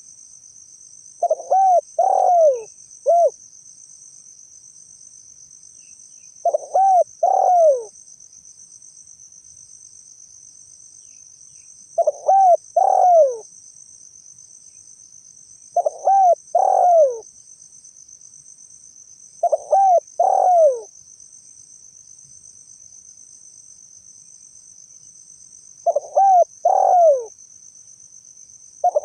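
Spotted dove (tekukur) calling: short phrases of two or three descending coos, repeated six times a few seconds apart. Under them runs a steady high-pitched insect trill.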